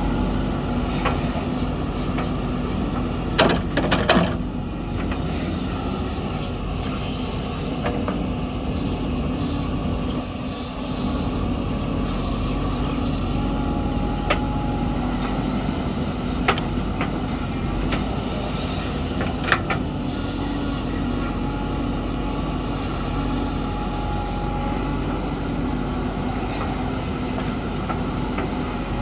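Diesel engine of a JCB backhoe loader running steadily under work, with a few sharp knocks, a cluster about four seconds in and another near the twenty-second mark.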